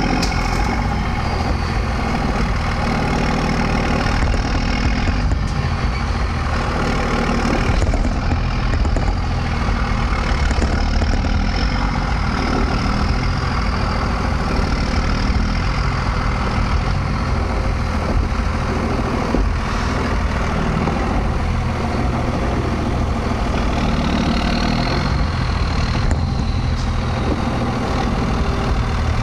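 Dodge pickup's 24-valve Cummins inline-six turbodiesel running steadily at low road speed while towing a tandem-axle dump trailer.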